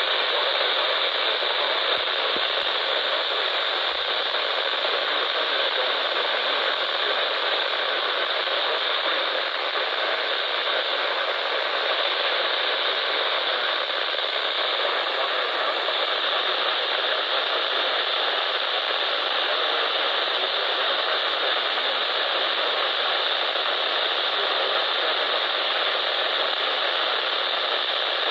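Steady radio static hiss from a receiver with no program audio, an even rushing noise without changes.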